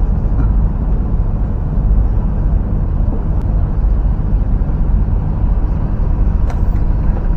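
A steady low engine drone with an even hum under it. About six and a half seconds in, a sharp snap as a fishing slingshot is released.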